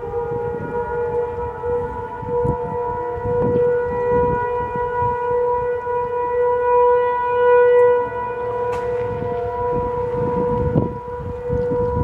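Federal Signal 500 civil defense (tornado) siren sounding a test, holding a steady pitch after winding up. Its loudness swells and eases, loudest about seven seconds in.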